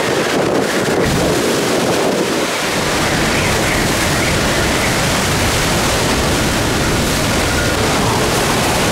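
Hurricane-force wind and heavy rain making a loud, steady rush of noise, with wind buffeting the microphone. The low rumble of the buffeting grows fuller about two and a half seconds in.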